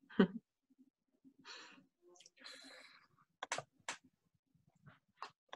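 Faint breaths and sighs over video-call microphones, with a couple of short sharp sounds about two-thirds of the way through.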